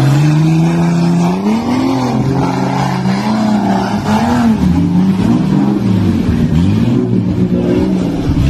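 Off-road 4x4's engine revving hard under load as it churns through deep mud, its pitch rising and falling again and again.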